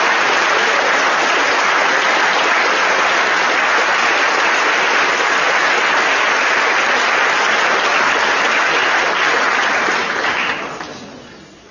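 An audience applauding steadily for a prize winner, dying away about ten and a half seconds in.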